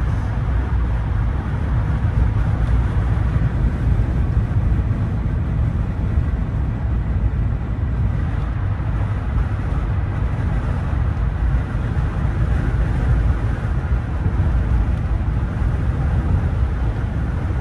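Steady road and engine rumble from a moving Ram pickup truck, heard from inside the cab.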